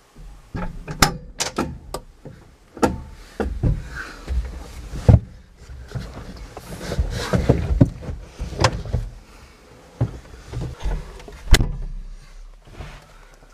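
Irregular knocks, clanks and rattles from someone climbing into a small skid steer's cab; the sharpest knock comes near the end.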